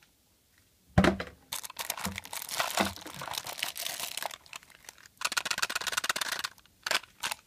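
Clear plastic wrapping crinkling and rustling as it is handled and unwrapped from a rolled sticker sheet, starting about a second in with a sharp knock.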